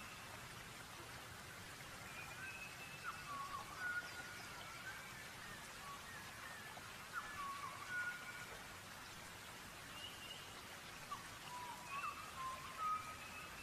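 Nature-sound recording of steady rain, with birds singing short whistled phrases in bursts every few seconds.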